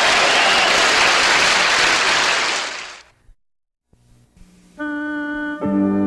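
Studio audience applause that fades out about three seconds in, a short silence, then music begins: a held chord of steady notes, joined by lower notes about a second later.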